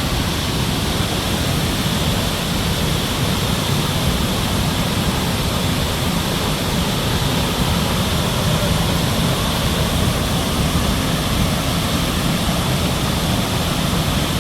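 Steady, unbroken rush of water from Victoria Falls, the Zambezi pouring into the gorge.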